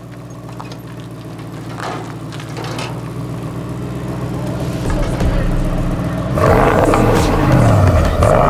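Car engine running and slowly growing louder, then pulling away hard about six seconds in, with the revs rising and falling.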